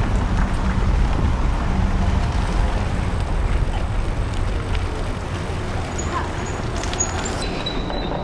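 Road noise heard from a moving bicycle in city traffic: a steady low rumble of wind buffeting the microphone and tyres on tarmac, with cars close by. A faint thin high whine comes in near the end.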